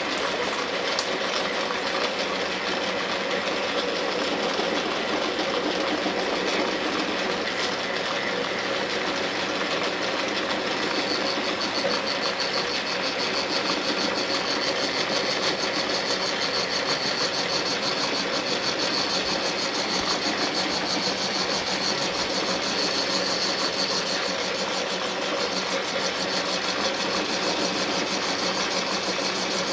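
Milling machine running with its cutter taking a pass along a steel vise-handle part, a steady machining noise. About eleven seconds in, a high whine joins it and holds.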